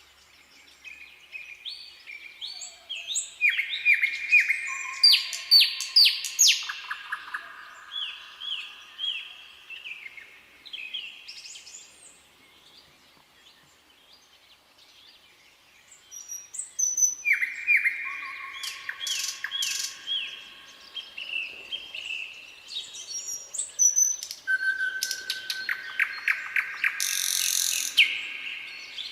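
A nightingale singing. It gives varied phrases of rapid repeated notes and clear whistled slurs, pauses for a few seconds near the middle, then starts again.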